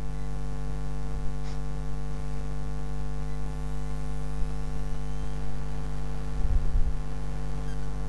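Steady electrical mains hum, with a brief low thump about six and a half seconds in.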